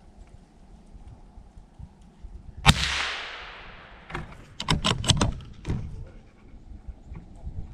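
A single gunshot a little over two seconds in, its echo dying away over about a second. A quick run of sharp knocks and rattles follows over the next two seconds.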